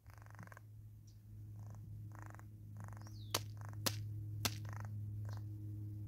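A steady low hum, with a short falling bird chirp and three sharp taps about half a second apart near the middle.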